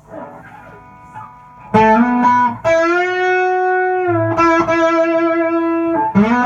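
Custom Stratocaster-style electric guitar played through a Mesa/Boogie Express 5:25 combo amp: a few soft notes, then from about two seconds in loud, long-held singing notes with string bends.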